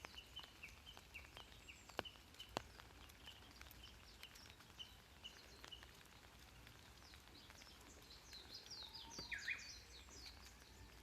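Faint birdsong: a short high chirp repeated about two to three times a second, then a quicker run of higher chirps and one brief sweeping note near the end. Two sharp clicks about two seconds in stand out above the birds.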